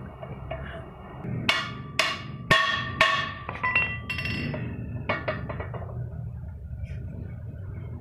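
Hammer blows on a truck driveshaft's universal-joint yoke, driving out the old cross joint: four loud ringing metal strikes about half a second apart, then several lighter knocks.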